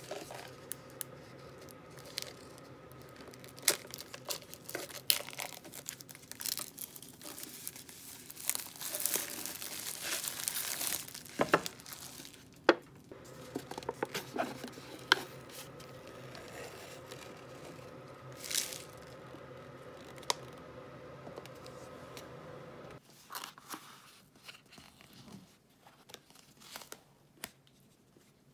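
Plastic film being torn and crinkled off an instant cup ramen, with sharp clicks of the cup being handled, and the paper lid being peeled back. A faint steady hum runs underneath until it cuts off abruptly about 23 seconds in, followed by quieter scattered handling sounds.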